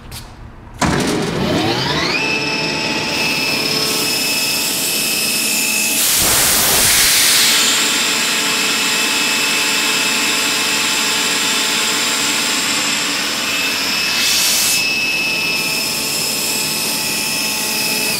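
LeRoi CompAir rotary screw compressor, driven by a 25 hp three-phase electric motor, starting up: about a second in, a whine rises as it spins up, then it settles within a couple of seconds into a loud, steady run with high steady tones. There are two brief bursts of hiss, around six seconds and fourteen seconds in.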